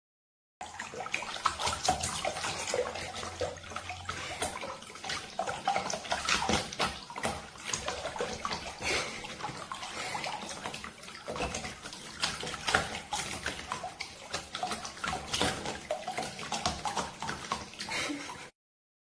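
Water splashing and sloshing, as in a bathtub, with many irregular small splashes.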